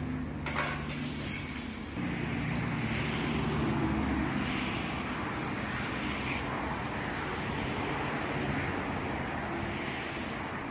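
Shovels and brooms scraping wet mud across a concrete floor in slow, repeated strokes, over a steady background hum like road traffic. The sound gets louder about two seconds in.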